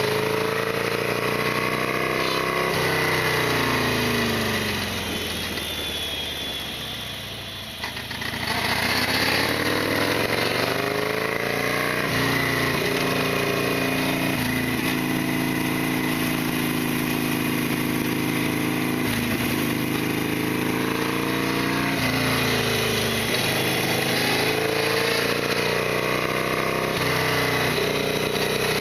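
Harley-Davidson Sportster XL1200R's air-cooled V-twin running under way. Its pitch falls as the bike slows and the sound drops away over a few seconds, then rises as it picks up speed again about eight seconds in, and it settles to a steady cruise.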